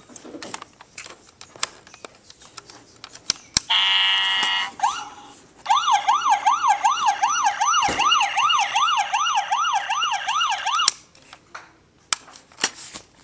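Electronic toy police siren from a 1/18 scale Crown Victoria patrol car model: a buzzing horn blast of about a second, a short rising whoop, then a fast yelp sweeping up and down about two and a half times a second for about five seconds, cut off suddenly. Light clicks and knocks of the plastic model being handled come before and after.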